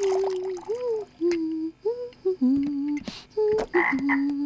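A woman humming a little tune in short, gliding notes, with faint drips and clicks behind it.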